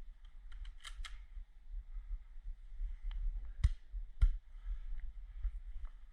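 Airsoft guns firing in an indoor close-quarters game: scattered sharp snaps and clicks, with two louder cracks about three and a half and four seconds in, over a low rumble of handling noise on the action camera.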